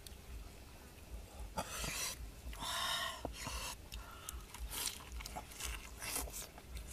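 Several short, breathy hisses of breath a second or so apart, with a few small clicks in between.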